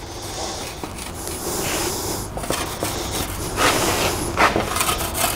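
Sheet-metal panel being rolled back and forth through an English wheel, a continuous rolling rumble with a few knocks and scrapes in the second half.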